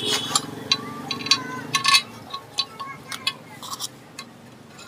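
Small metal engine parts clinking and tapping as they are handled and fitted onto a bare engine crankcase: a quick run of light, ringing clinks, densest in the first two seconds and sparser after. A low steady hum underneath stops about two seconds in.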